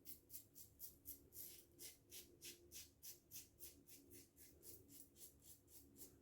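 Mühle R89 safety razor with a Feather blade scraping through lathered stubble in short, quick strokes, a faint rasp repeating about three to four times a second.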